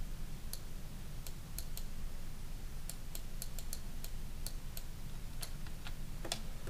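Irregular clicks of a computer mouse and keyboard, over a steady low hum.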